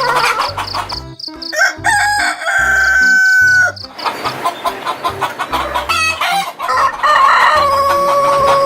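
Roosters crowing twice: one long held crow about two seconds in and another near the end, with chickens clucking between.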